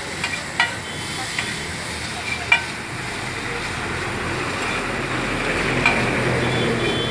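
Chowmein noodles sizzling as they are stir-fried on a large flat griddle. Metal spatulas clink and scrape against the griddle several times, the sharpest knock about two and a half seconds in.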